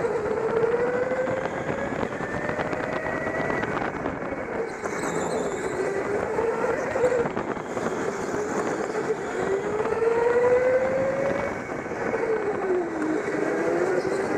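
Go-kart motor running at full pace around an indoor track, its whine rising and falling in pitch every few seconds as the kart speeds up on the straights and slows for the corners, over a steady rumble of the chassis and tyres.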